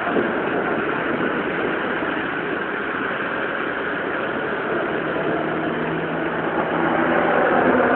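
Steady rain falling, a dense even hiss. A faint low steady hum joins about five seconds in.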